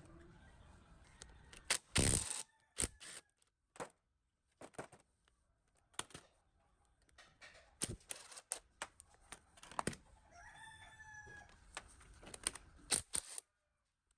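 Irregular sharp clinks and knocks of hand tools against metal pump parts. A short, high, rising pitched call or squeal comes about ten and a half seconds in.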